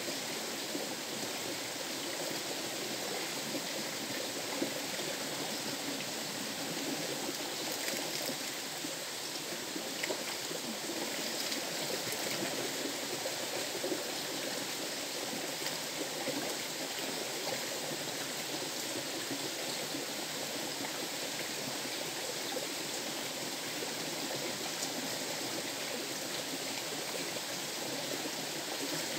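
River water flowing with a steady rush of running water.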